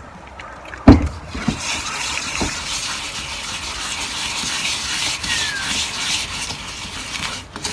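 Concrete mix being worked by hand in a plastic tub after water was added to thin it, a steady wet rustling and scraping. The plastic water bottle is put down with a sharp knock about a second in, followed by two lighter knocks.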